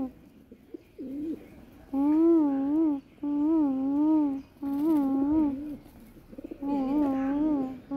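Domestic pigeons cooing: four loud, wavering coos of about a second each, starting about two seconds in, with fainter coos from other birds in the gaps.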